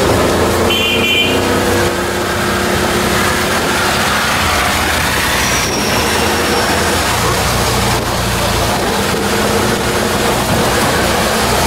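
Inside an auto-rickshaw (three-wheeler) on the move: its small engine runs steadily under a constant hiss of tyres on the wet road and wind through the open sides. A brief high-pitched tone sounds about a second in.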